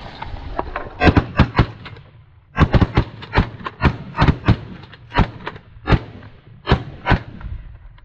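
A ragged volley of shotgun blasts from several hunters firing together, about twenty shots. A quick cluster comes about a second in, then a dense run of shots follows, and the last few are spaced out near the end.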